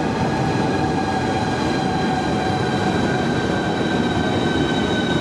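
Electric passenger train running slowly into the platform: a steady rumble with several high whining tones that slowly fall in pitch as it slows.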